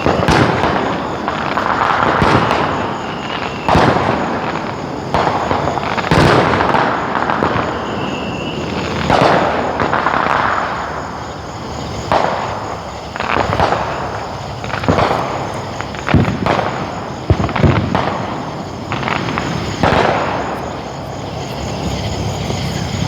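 Fireworks going off: irregular bangs and pops every second or two, each followed by a rolling echo.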